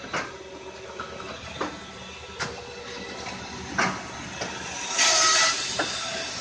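Tractor-driven Tajfun RCA 380 firewood processor running with a steady machine hum. Sharp wooden knocks come every second or so, and a loud rushing burst lasts about half a second near the end.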